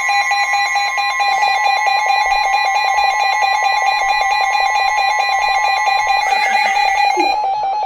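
Emergency Alert System attention tone: a loud, steady two-tone alarm with a fast flutter. The higher tone drops out about six seconds in and the lower tone carries on alone.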